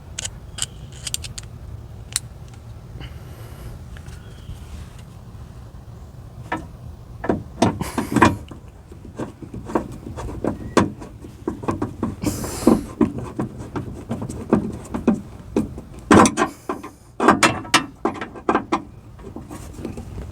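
Irregular clicks, taps and short scrapes of hand work on a car door's inner frame, as a screw is fitted with a Phillips screwdriver, over a steady low hum. The clicks grow busier about a third of the way in.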